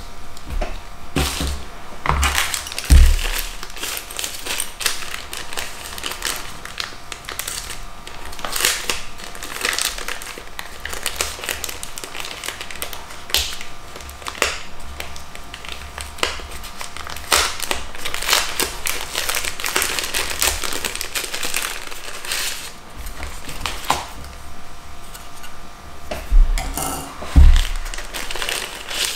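Plastic wrapping and a cardboard box insert being handled, crinkling and rustling unevenly, with clicks and two heavier thumps against the box, about three seconds in and near the end.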